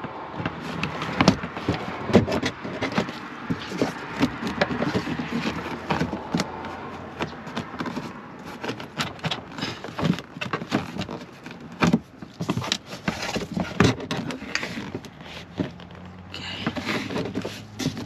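Plastic cargo-area side trim panel of a Hyundai Palisade being pulled and flexed by hand: scraping and rubbing plastic with many sharp clicks and knocks.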